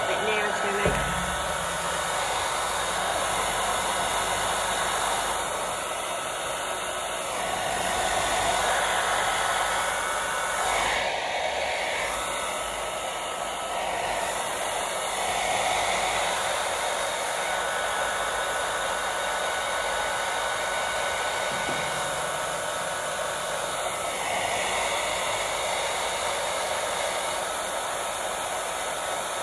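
Handheld hair dryer blowing steadily, rising and falling slightly in loudness. A brief knock about a second in.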